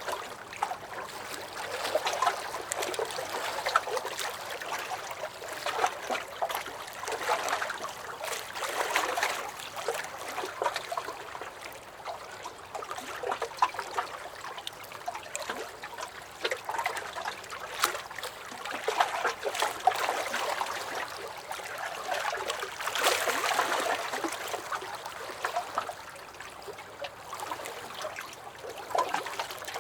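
Small lake waves lapping against a dock: water sloshing and splashing in swells that rise and ease every few seconds, with quick little slaps and drips.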